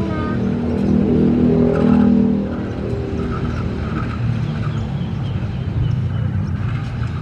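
Diesel-electric locomotive's engine running as the locomotive moves slowly during shunting. The engine note swells to its loudest about one to two and a half seconds in, then settles back to a steady run.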